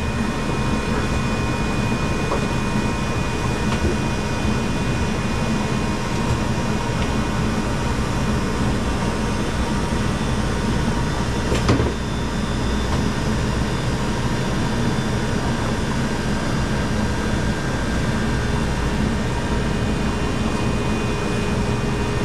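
Steady mechanical running noise with a low rumble and faint steady whine tones, broken once by a sharp click a little before halfway.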